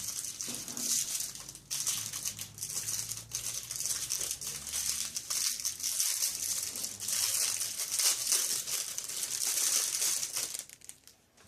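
Crinkling and rustling of packaging being handled and opened around a 2x2x3 puzzle cube, with a steady crackle of small rustles that dies away near the end.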